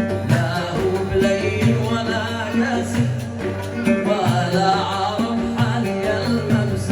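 Instrumental passage of Yemeni song music: a wavering melody line over a steady rhythmic accompaniment.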